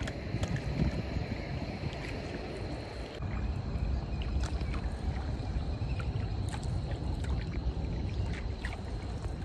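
Water lapping and splashing against the hull of a small rowed boat as it moves across a lake, with scattered small splashes over a steady low rumble, a little louder from about three seconds in.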